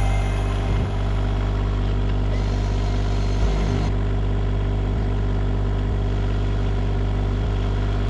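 A vehicle engine running steadily with a constant low drone and a few faint knocks.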